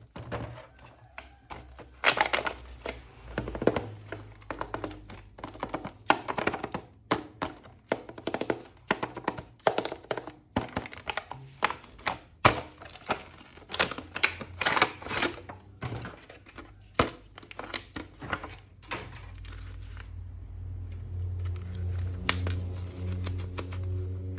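An action figure being unboxed by hand: many sharp clicks, knocks and plastic crinkles as the toy and its packaging are handled. After about nineteen seconds a steady low hum comes in and runs on.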